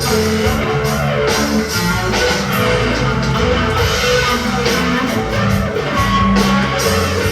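Electric guitar, a Squier Stratocaster played through a Big Muff fuzz, wah and reverb into a Fender Champion amp, playing an improvised rock solo with sustained, bent notes.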